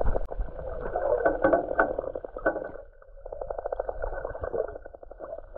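Muffled underwater sound from a submerged camera: water moving and sloshing around the housing. From about three to five seconds in there is a fast run of clicks.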